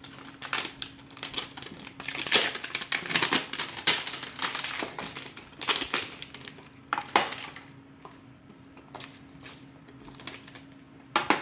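Toy packaging being opened by hand: irregular crinkling and rustling with scattered clicks, busiest in the first seven seconds, then a quieter stretch and one last sharp rustle near the end.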